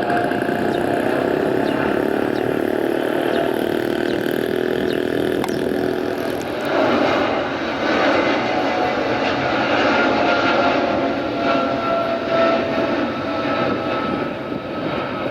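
An airliner's engines at takeoff power: a loud, steady rush with thin whining tones over it, the pitch of the tones sinking slightly near the end.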